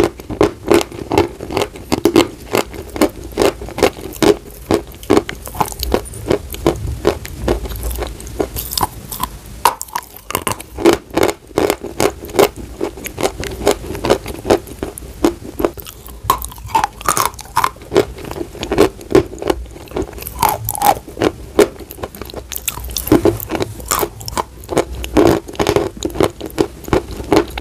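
Dry white chalk being bitten and chewed: a dense, continuous run of sharp crunches, several a second.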